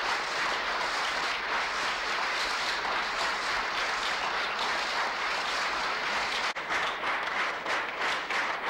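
A large crowd applauding steadily, thinning into more scattered, separate claps in the last couple of seconds.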